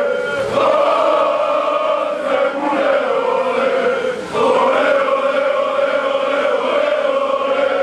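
Large crowd of football supporters chanting a song in unison, mostly men's voices holding long drawn-out notes. The singing breaks off briefly about four seconds in, then picks up again.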